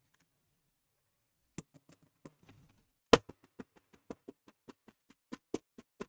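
A quick, uneven series of sharp plastic clicks and taps, starting about a second and a half in, with one much louder knock about three seconds in: the opened laptop casing being shaken and tapped to get loose broken fragments out from inside it.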